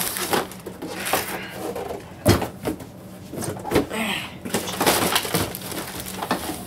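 Cardboard box handling: a large inner cardboard tray scraping and knocking as it is slid out of a toy box, with plastic wrapping rustling, in irregular scrapes and knocks.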